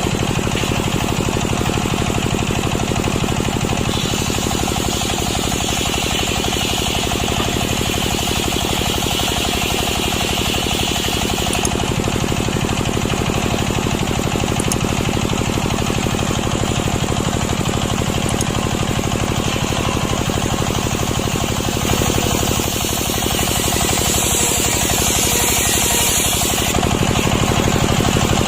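Chainsaw running steadily under load, ripping lengthwise through a freshly felled, still-wet breadfruit log; its note shifts a few times as the cut goes on.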